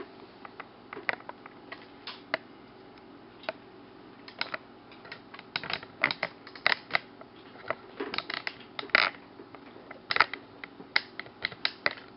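Irregular light clicks and taps of a small screwdriver working out the screws that hold a laptop's LCD panel in its lid, with handling of the panel. The clicks come sparsely at first and more thickly from about four seconds in.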